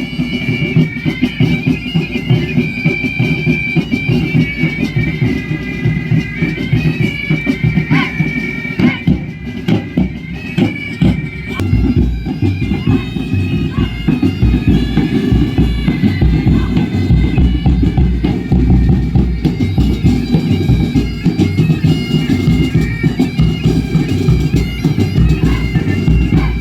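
Music with a sustained wind-instrument melody over drum beats, the low drum beats growing heavier about halfway through.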